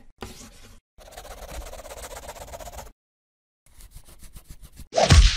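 Pencil scribbling on paper: long scratchy strokes, then a run of quick back-and-forth hatching strokes, about eight a second. About five seconds in, a sudden loud hit with a deep boom cuts in.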